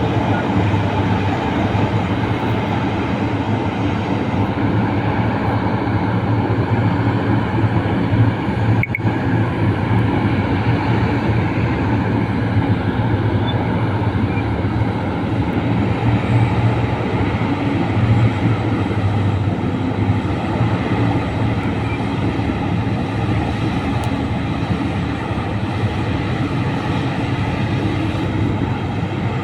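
Liebherr R996 hydraulic mining excavator running: a steady heavy mechanical drone with a strong low hum and a single sharp click about nine seconds in.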